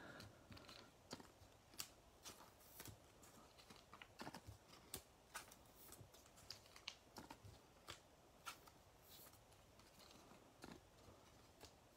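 Faint, scattered clicks and rustles of trading cards being handled and sorted by hand.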